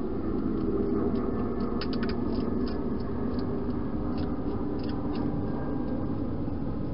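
Wild hedgehog eating dry food inside a plastic feeding box: irregular sharp crunches and clicks, bunched about two seconds in and again around four to five seconds, over a steady hiss.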